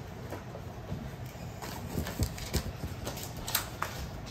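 Handling noise from writing something down by hand: light, irregular taps and clicks that thicken from about a second and a half in.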